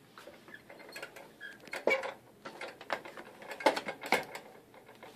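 Old spring-and-dial mechanical bathroom scale clanking and rattling as a person steps onto it one foot after the other, a series of sharp metal knocks, the loudest about two and four seconds in.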